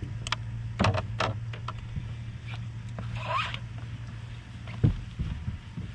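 Knocks and thumps on a fishing boat's deck as an angler moves about handling a freshly caught crappie, with a short squeak a little past three seconds in. A steady low hum runs underneath.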